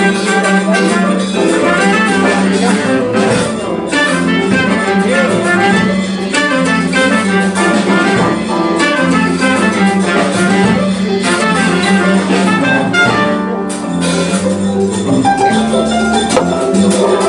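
Live jazz band playing, with a trumpet taking the lead over piano, guitar and hand drums.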